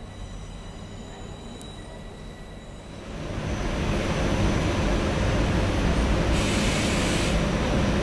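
A train running on the station tracks: its noise builds from about three seconds in and stays loud, with a short burst of hiss a little past six seconds in.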